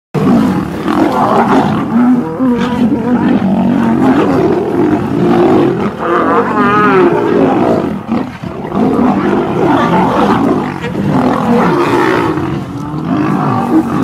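Several lions fighting: a loud, continuous tangle of snarls, growls and roars, with a brief quavering higher cry about halfway through.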